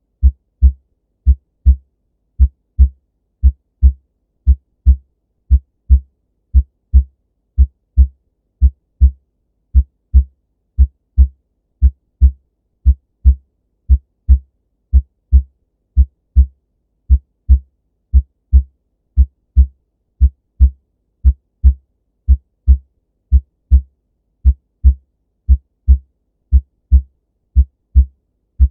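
Recorded heart sounds presented as an abnormal heart sound: steady paired lub-dub beats, about one beat a second, each pair two short low thumps close together with quiet gaps between.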